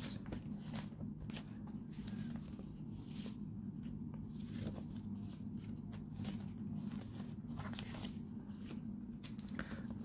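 Paper envelopes and card being handled and shuffled on a tabletop: scattered soft rustles and light taps over a steady low hum.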